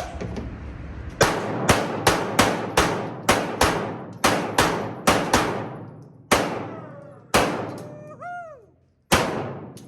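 Pistol shots fired in a fast string, about fourteen in all, close together at first and then spaced out as the shooters work through their targets. Each shot rings off briefly, and a short ringing tone sounds near the end.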